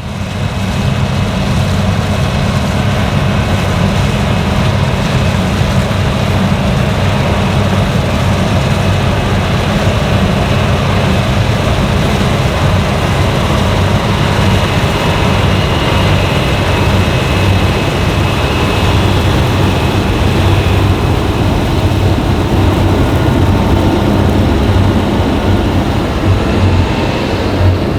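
Fendt Ideal 10T combine harvester running steadily at work in wheat: a constant loud mechanical drone with a heavy low rumble.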